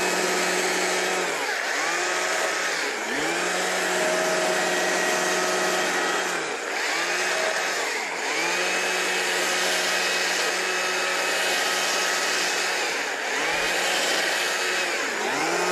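Stihl two-stroke chainsaw running at high revs while cutting into a small log, its engine pitch dropping briefly and climbing back about six times.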